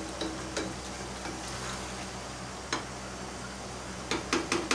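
Ladle stirring a thick taro-and-mutton curry in a pot as the masala sizzles in oil while it is fried down. Near the end, a quick run of clicks as the ladle knocks against the pot.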